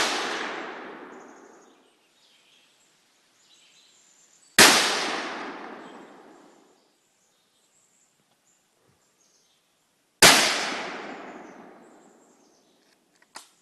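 Three shots from a .204 Ruger bolt-action rifle, about five and a half seconds apart, the first right at the start; each is followed by an echo dying away over about two seconds. A few faint clicks near the end.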